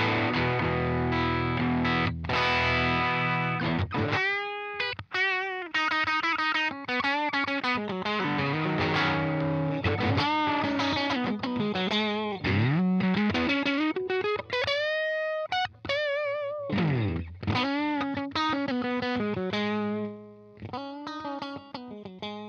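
Electric guitar, a Fender Stratocaster, played through an EarthQuaker Devices Bit Commander octave synth pedal, giving a distorted, synth-like tone. Thick sustained notes come first, then a single-note line with slides, bends and wavy vibrato, which rings out and dies away near the end.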